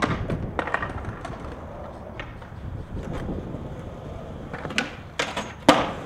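Skateboard wheels rolling on concrete, with occasional clacks of the board. Near the end comes a quick series of sharp clacks and slaps as the board pops up to the handrail, slides a backside noseblunt down it and lands, the last impact the loudest.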